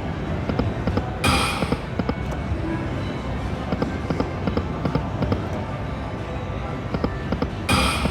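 Video slot machine spinning, its electronic sounds ticking and playing over casino floor noise. A short, bright burst of sound comes about a second in and again near the end, as spins start.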